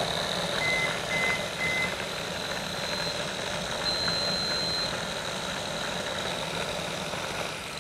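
Tamiya Mini 4WD car's small electric motor and gears whirring steadily with its wheels spinning on the rollers of a Tamiya Mini 4WD Speed Checker. Three short beeps from the checker about a second in start the timed run, and a single longer, higher beep around four seconds in signals that the measurement is finished.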